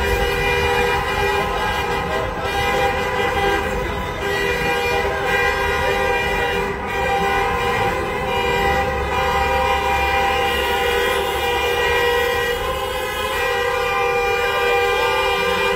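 Many car horns held down together in a continuous, layered honking, echoing off the walls of a road tunnel over the rumble of traffic.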